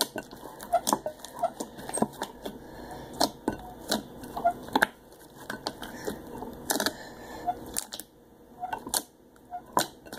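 Fluffy homemade slime being kneaded and squeezed by hand, giving irregular sticky clicks and small pops, sparser near the end.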